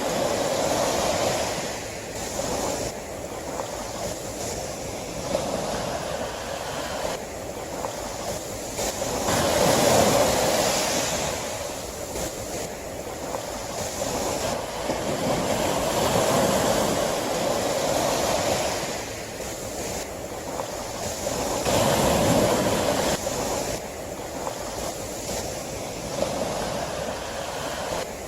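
Sea waves breaking, a rushing sound that swells and fades every five or six seconds.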